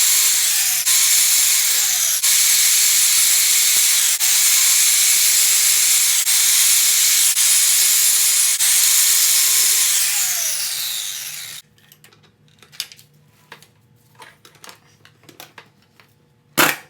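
A power tool running hard on the jam nut on a YZ125 crankshaft end, with brief dips every second or so as the trigger eases and catches. It winds down about two-thirds of the way through. Light clicks and handling noises follow, then a loud clatter near the end.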